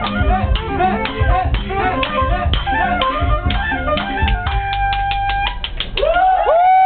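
Thai traditional music: a hand drum beaten in a quick, even rhythm under a wavering wind-instrument melody. About four and a half seconds in, a steady held tone sounds over rapid strikes. Near the end the drumming stops and a loud tone slides up and is held.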